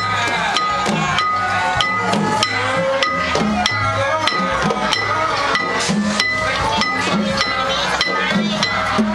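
Khmer chhayam procession music: drums beaten in a steady, lively rhythm with small cymbals ringing over them, and voices along with it.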